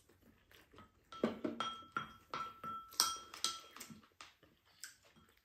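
Metal spoons clinking against ceramic rice bowls while eating, a quick string of about ten light strikes over roughly three seconds, each ringing briefly with the same clear tone, then a few fainter taps.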